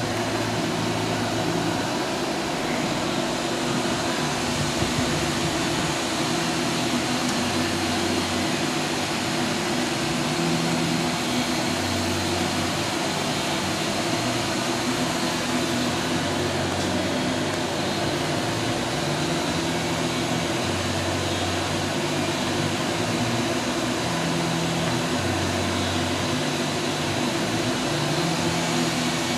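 Doosan DNM-400 vertical machining center running with a steady mechanical hum and hiss, and a low hum that shifts between two pitches every few seconds.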